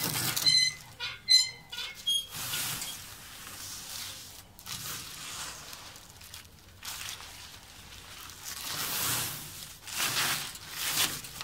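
Protective plastic film being peeled off a clear plastic awning sheet: quick squeaky crackles in the first two seconds, then swells of rustling and crinkling from the loose film.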